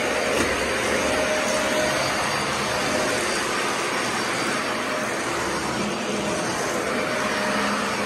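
Dyson Ball Animal 2 upright vacuum cleaner running steadily as it is pushed over a wooden floor, an even motor and suction noise with a faint steady whine.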